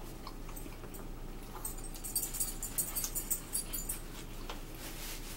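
Bright metallic jingling, like small bells or keys shaken, lasting about two seconds from roughly one and a half seconds in.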